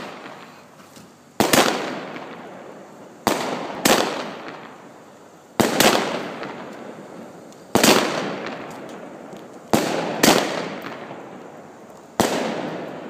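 Fireworks going off in a series of about eight loud bangs, roughly one every two seconds, some in quick pairs. Each bang fades away in a long echoing tail.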